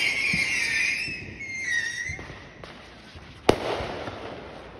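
Fireworks going off: a high firework whistle, falling slightly in pitch, fades out over the first two seconds, then a single sharp bang comes about three and a half seconds in.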